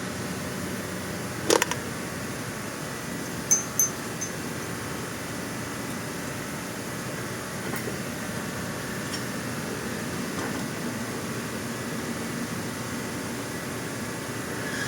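Steady mechanical whirring, with a few sharp metallic clinks in the first four seconds, two of them ringing briefly.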